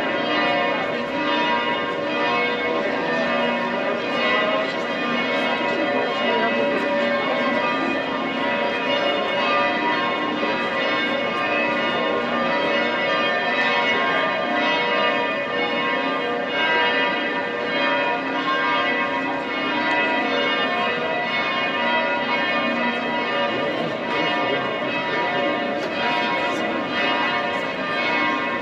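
Two bells of St. Stephen's Cathedral ringing together in a continuous peal. Their many long-ringing tones overlap without a break.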